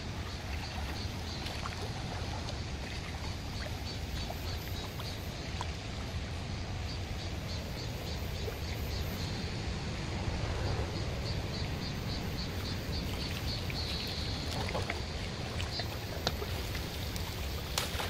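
Shallow mountain stream running over rocks: a steady rushing with a low rumble.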